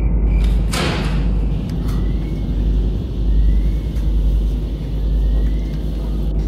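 A loud, steady low rumble, with a whoosh that falls in pitch about a second in.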